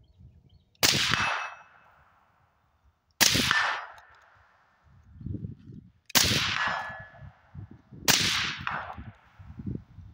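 Four suppressed shots from an AR-15-type Special Purpose Rifle on a bipod, fired singly about two to three seconds apart, each a sharp report with a short fading tail.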